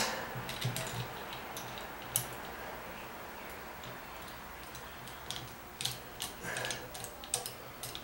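Light, scattered clicks and ticks of a small screwdriver and screws being handled against a plastic shower valve cartridge, with a quicker run of clicks in the last few seconds.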